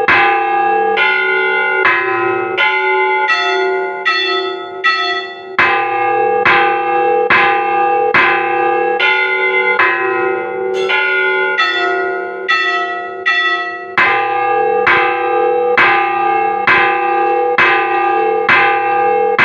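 Church bells being rung in a steady peal, about four strokes every three seconds, each stroke ringing on into the next. The combination of bells changes every few strokes, so the tune shifts through a repeating pattern.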